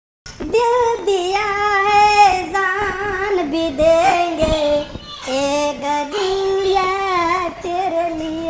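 A high voice singing a slow melody with long, wavering held notes and short pauses between phrases, starting about a quarter second in.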